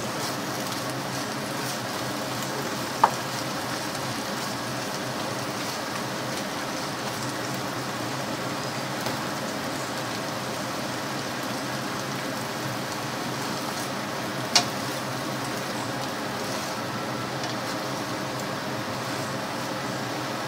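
Beef and green vegetables sizzling steadily in a frying pan, with two sharp knocks, about three seconds in and again about two-thirds of the way through.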